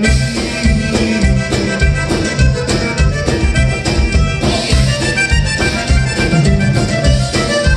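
Live conjunto band playing, with accordion over guitars, bass and drums keeping a steady beat.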